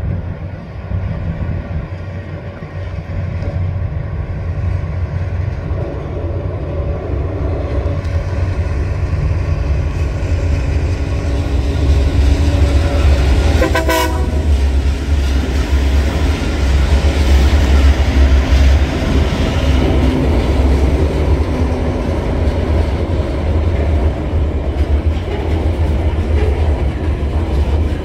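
Diesel locomotives of a coal train rumbling past, growing louder as the lead locomotive draws level. A short horn toot sounds about halfway through, then the coal hopper wagons roll by with a clickety-clack.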